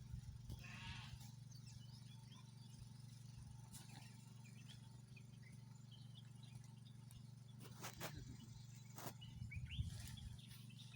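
Faint outdoor ambience: a brief animal call about a second in, scattered short bird chirps, and a steady low hum, with a couple of sharp clicks near the end.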